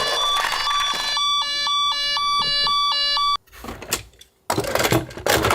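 Toy ambulance's electronic two-tone siren alternating high and low, about two and a half cycles a second, which cuts off abruptly a little past halfway; it is followed by irregular clattering and rattling.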